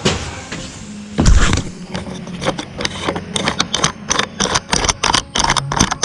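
Handling and movement noise: irregular knocks and clicks, one heavier thump about a second in, then a quicker run of clicks and taps, with clothing brushing close to the microphone.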